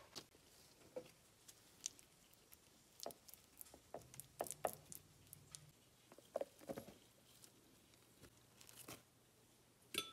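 Faint, scattered clicks, taps and rustles of food preparation: dishes, utensils and dry ingredients being handled, in clusters with quiet gaps between.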